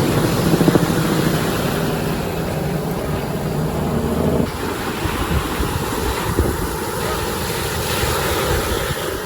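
Wind buffeting the microphone over the wash of ocean surf, with a sudden change in the sound about four and a half seconds in.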